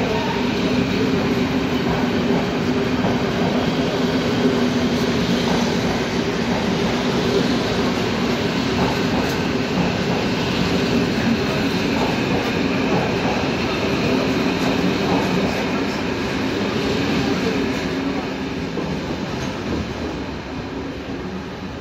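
Historic passenger train's vintage coaches rolling past on the rails as the train departs, the wheels clattering over the rail joints, the sound fading over the last few seconds as the last coach pulls away.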